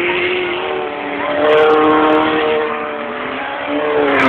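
Autocross race car engine running hard on a dirt track, its pitch climbing as it accelerates about a second and a half in. Near the end the car passes close and loud, then the sound falls away suddenly.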